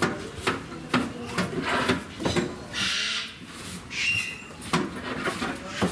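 Scraping and knocking of a zookeeper's cleaning tools in a zoo animal enclosure: a run of sharp knocks and clicks, with a rasping scrape about three seconds in and a short squeak just after four seconds.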